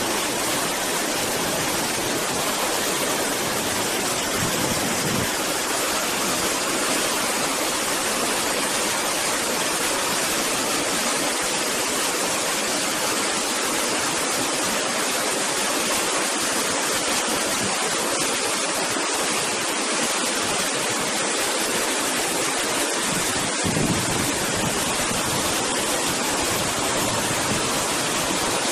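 White water rushing steadily through a narrow rocky gorge and churning into a pool below.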